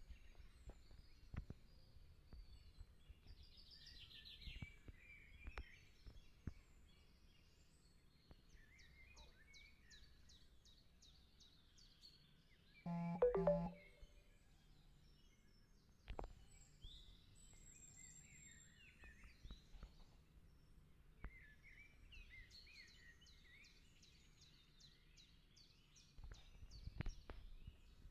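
Quiet outdoor background with small birds chirping and trilling on and off over a low, steady hum. About 13 seconds in comes one short, louder, low-pitched tone lasting under a second.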